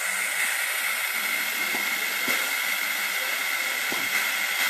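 Pneumatic vacuum ejector hissing steadily as compressed air rushes through it, drawing vacuum at the suction cup; the hiss carries a faint whistle.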